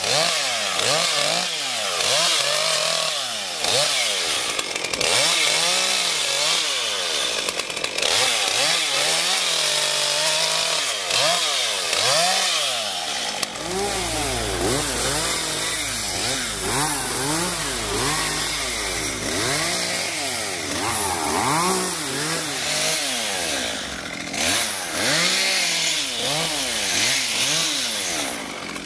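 Chainsaw cutting back tree branches, its engine revving up and falling back over and over, about every one to two seconds.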